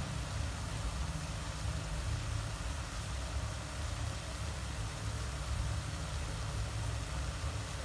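Wok of whole shrimp cooking on the stove: a steady low rumble with an even hiss over it, unbroken throughout.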